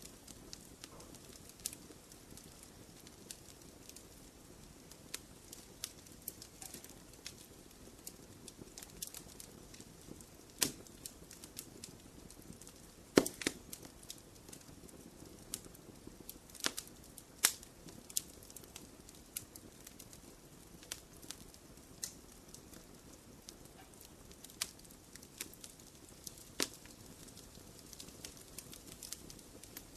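Wood fire burning in a fireplace, with a soft low rush and irregular sharp crackles and pops, a few louder snaps now and then.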